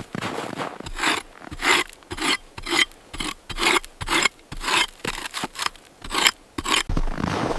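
Repeated rasping, scraping strokes, about two a second, with a steadier rushing sound near the end.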